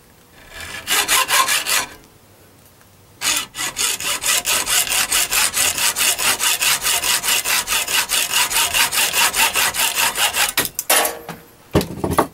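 Hand hacksaw cutting through a 1/8-inch brass rod clamped in a vise. There is a short run of strokes, a pause, then quick, even back-and-forth strokes for several seconds, and a few knocks near the end.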